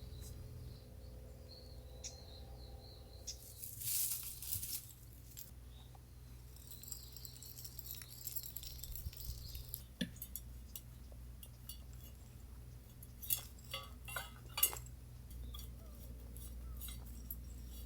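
Scattered light clinks and clicks of small hard objects being handled, with a few louder ones together near the end.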